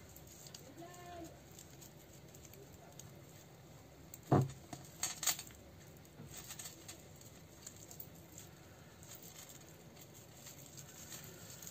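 Hands handling fabric strips and raffia around a bundle of twigs: faint rustling with scattered small clicks and taps, and a soft knock about four seconds in.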